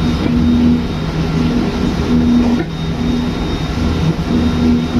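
Electric train running at speed, heard from inside the front of the car: a steady rumble of wheels on rail, with a low hum that comes and goes every second or so.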